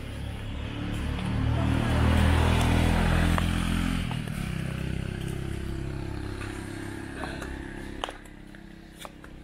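Motorcycle engine passing along the street, growing louder to a peak about two seconds in, then fading away.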